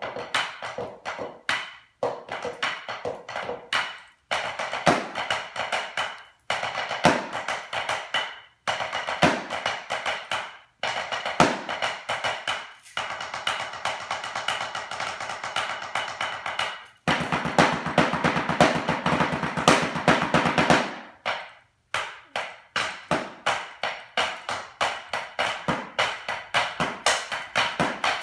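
Two drummers playing drumsticks together on practice pads, rapid strokes in short phrases broken by brief pauses about every two seconds. Past the middle the strokes run together into a fast roll for a few seconds.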